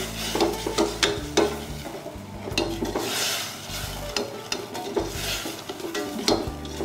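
A metal spoon stirring and scraping vegetables in a stainless steel saucepan, with frequent sharp clinks against the pan. The vegetables sizzle in hot oil and sauce, with short surges of hiss.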